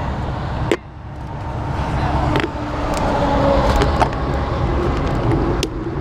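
Wind and road rumble on a bike-mounted camera's microphone while riding a bicycle in street traffic, with passing cars. A click about a second in, after which the noise drops sharply and then builds back up over the next couple of seconds, with a few lighter clicks later.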